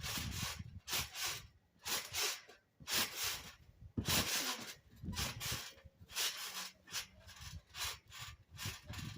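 A string of irregular rustling and rubbing noises close to the microphone, about one or two a second.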